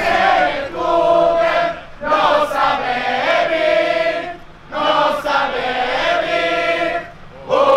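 A crowd of student revellers chanting a song together in unison, in three long drawn-out phrases with short breaks between them.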